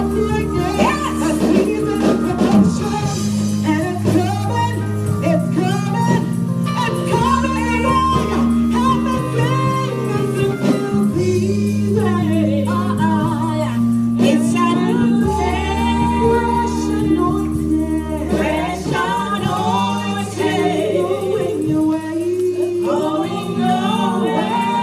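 Church choir singing a gospel song over keyboard and bass accompaniment, with held bass notes changing every second or two under the voices.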